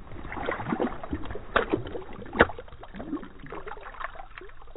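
Water splashing and gurgling in an ice-fishing hole as a largemouth bass is let go and thrashes back down. The splashing comes in a quick irregular run, with two sharp slaps about a second and a half and two and a half seconds in.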